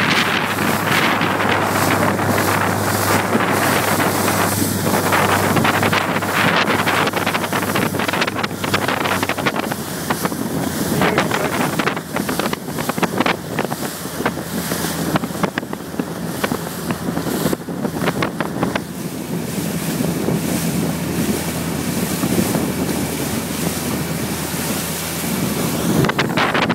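Strong wind buffeting the microphone over the rush and slap of choppy water as the boat carrying the camera moves at speed, with a steady low hum underneath.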